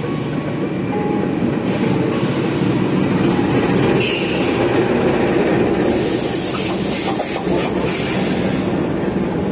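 Locomotive-hauled passenger train passing close by on the adjacent track: the diesel locomotive comes alongside, then its coaches roll past. Steady rumbling noise from engine and wheels, growing louder over the first few seconds.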